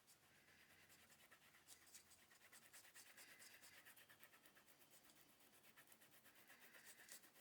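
Faint, rapid scratching strokes of a hand tool working a surface, many strokes a second.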